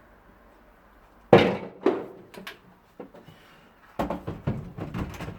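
Knocks and thuds of a kitchen hob being pushed and knocked down into its worktop cutout until it sits snug: a loud thud about a second in, another just after, then a quick run of knocks near the end.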